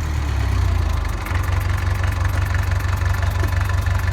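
Massey Ferguson 130 tractor's diesel engine idling steadily, freshly started and warm, running happily.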